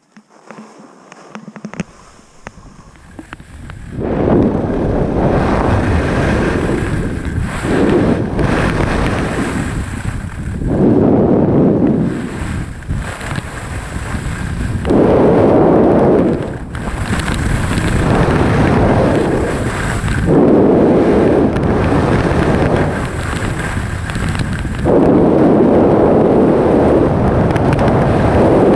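Wind buffeting the microphone of a skier going fast down a groomed run, with the skis scraping over the snow. It is quiet at first, turns loud about four seconds in, and then surges and eases every few seconds.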